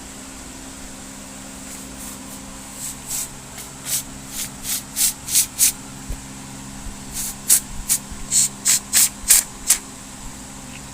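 Can of Great Stuff Gaps & Cracks expanding foam sprayed in short hissing spurts as the trigger is pulled and released. About eight quick spurts are followed by a pause of about a second and a half, then another run of about nine.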